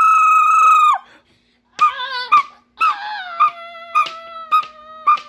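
A loud, long, high-pitched held squeal, then wavering whining cries with sharp taps about twice a second.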